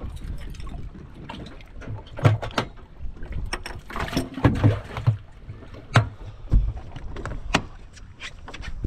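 Handling noises on a bass boat deck: a series of sharp knocks and clicks, the loudest about two, four and a half and six seconds in, with a stretch of rustling around four seconds.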